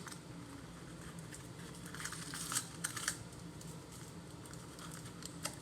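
Faint handling of small toy packaging: a few soft clicks and rustles as a small box is opened, about two to three seconds in.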